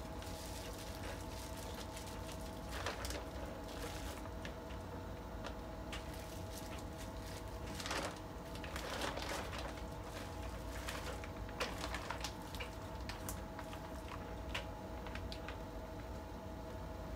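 Plastic bag crinkling and rustling, with wet squishing, as gloved hands squeeze and pull cabbage kimchi out of its packaging bag, in irregular bursts that are busiest in the middle of the stretch. A steady low hum runs underneath.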